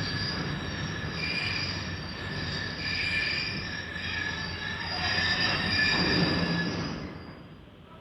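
Railway wheels squealing on the rails, several high wavering squeal tones over a steady rumble of the moving train. It swells briefly and then fades away about seven seconds in.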